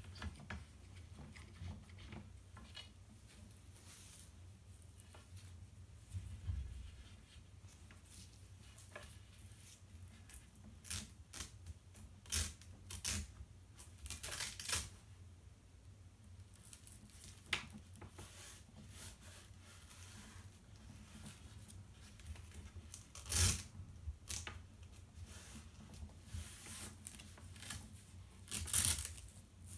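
Stiff cross-stitch fabric rustling and swishing in short, irregular bursts as it is handled and wrapped onto the wooden rollers of a scroll frame, with the loudest swishes about two-thirds of the way through and near the end.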